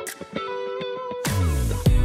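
Background music: picked guitar notes, joined a little over halfway through by a louder, fuller beat with heavy bass and drums.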